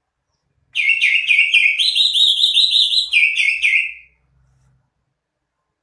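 Cucak ijo (green leafbird) singing: a loud, quick run of repeated chirping notes that starts about a second in and lasts about three seconds, then stops.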